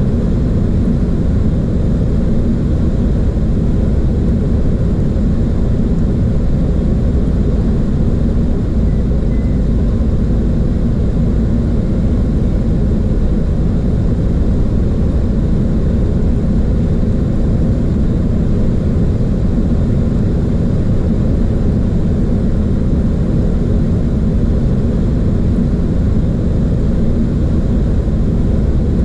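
Steady low rush of airflow and engine noise inside a Boeing 737 cockpit, unchanging throughout.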